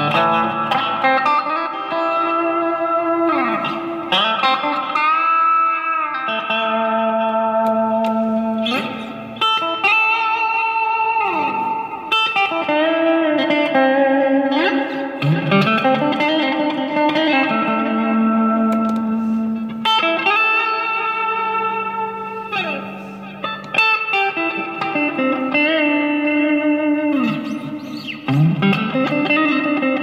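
Reverse-headstock Stratocaster parts-caster electric guitar playing a slow blues-style lead: long sustaining notes with frequent string bends that glide up and back down in pitch.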